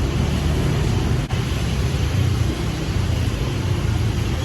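Steady street traffic noise, a low rumble of motorbike and car engines with hiss, dipping briefly about a second in.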